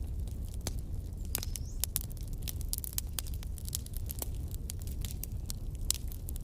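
Wood bonfire burning, with a steady low rumble of flame and many sharp, irregular crackles and pops.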